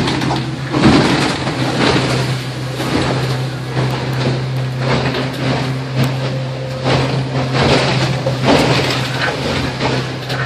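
Quicksilver 580 Pilothouse's outboard engine running with a steady drone, heard from inside the pilothouse cabin. Over it come repeated splashes and knocks as waves and spray strike the hull and windshield in rough, choppy sea.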